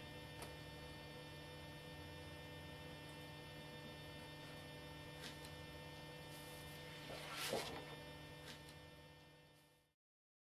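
Steady low electrical mains hum with its overtones, with faint ticks and one short paper rustle about seven and a half seconds in as letters are pressed onto a scrapbook page; it all fades out near the end.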